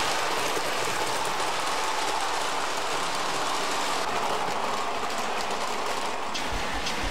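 Electric model train running along metal track: a steady whirring of the motor and wheels on the rails. About six seconds in, a regular clicking and low pulsing joins it.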